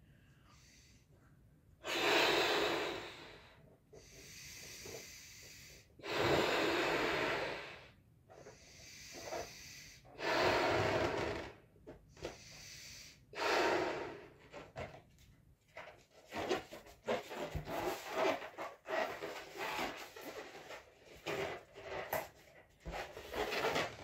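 A green Folat latex balloon being blown up by mouth: four long, loud puffs of breath into it, each about a second and a half, with quieter in-breaths between. From about halfway on, a quick run of short squeaks and rubs of the stretched latex as the full balloon is handled and knotted.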